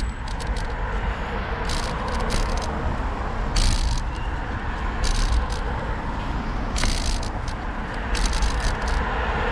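Riding noise on a bicycle: a steady rumble of wind on the microphone and road noise, with the bike rattling in short irregular bursts every second or so.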